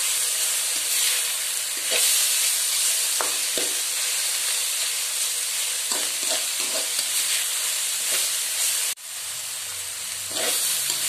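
Shredded chayote stir-frying in a wok: a steady sizzle, with a metal spatula scraping and knocking against the pan every second or two. It breaks off suddenly about nine seconds in and comes back quieter.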